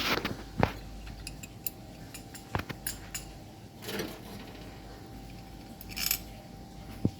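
Scattered metallic clicks and clinks of hand tools and small metal parts being handled, with a few short scraping rustles between them.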